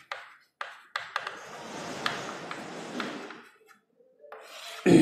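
Chalk writing on a chalkboard: a few sharp taps as the chalk touches down, then about two and a half seconds of scratchy strokes.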